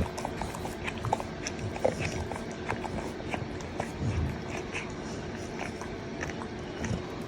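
A dog's small sounds, with scattered short clicks and a faint steady hum.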